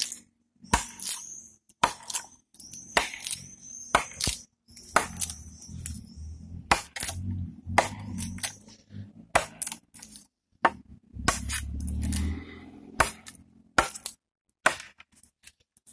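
Large fixed-blade knife, a Kizlyar Supreme Bastardo in 420HC steel, chopping into a very dry maple branch: a run of sharp strikes landing irregularly, about one or two a second. There is a brief low rumble about two-thirds of the way through.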